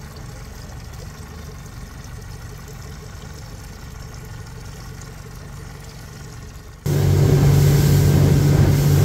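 A low, steady engine hum, then about seven seconds in an abrupt jump to a much louder motorboat engine running with a rush of noise over it.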